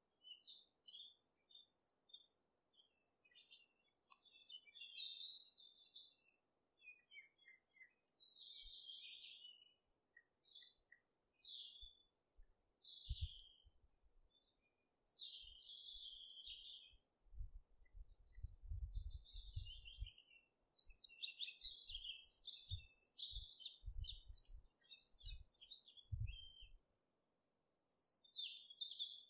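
Small birds chirping and singing in quick, high chirps and trills that overlap, with a few low thuds in the second half. The sound starts and stops abruptly.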